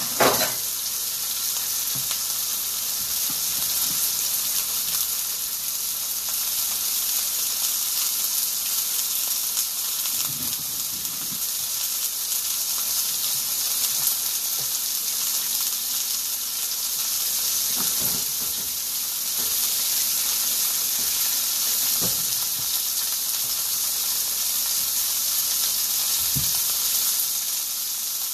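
A seasoned pot roast searing in a hot cast iron skillet: a steady sizzle, with a faint pop now and then.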